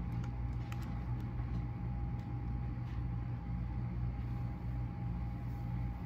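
Steady low machine hum with a thin steady whine above it, like a room air unit running, and a few faint clicks.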